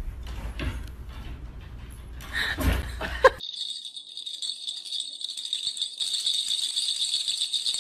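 A high, steady jingling rattle that starts abruptly about three and a half seconds in, after a couple of soft knocks.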